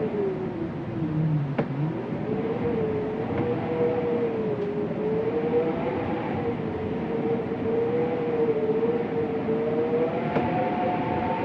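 Wind moaning: a rushing hiss under one wavering tone that swoops down low about a second and a half in, climbs back and then holds, wavering gently.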